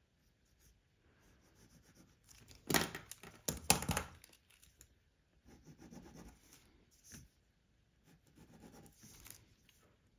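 Pen on a paper worksheet: handling noise with sharp rustles and clicks about three seconds in as a purple pen is swapped for a red one, then soft, intermittent scratching as the red pen draws on the paper.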